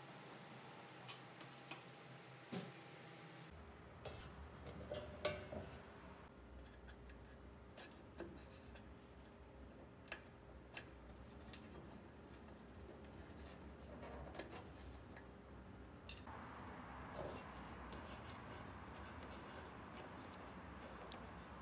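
Small clicks, taps and rubbing from hands working on a laser cutter's parts: a screwdriver at a panel, a wire connector and plastic water-tube fittings on the glass laser tube, heard as scattered sharp ticks over a faint steady hum.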